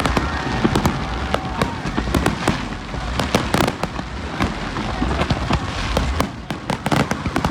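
Aerial fireworks bursting in rapid succession: a dense run of sharp bangs and crackles over a continuous low rumble of explosions.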